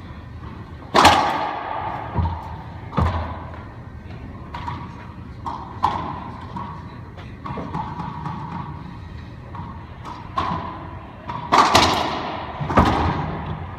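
Racquetball strikes in an enclosed court: sharp cracks of racquet on ball and ball off the walls and floor, each ringing in the hall. A loud strike about a second in, scattered lighter knocks, then a quick run of hard hits near the end.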